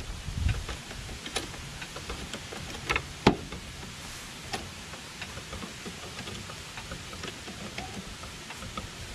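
Hydraulic floor jack being worked by its long pump handle: scattered light clicks and ticks from the jack's pump and handle, with one louder clack about three seconds in.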